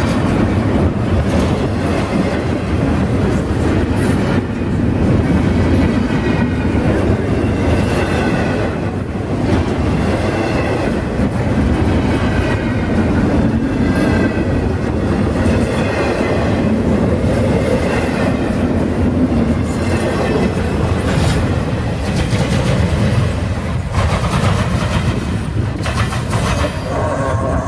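CSX intermodal train's cars rolling past at close range: a steady loud rumble and clatter of steel wheels over the rail joints, with faint high wheel squeal at times.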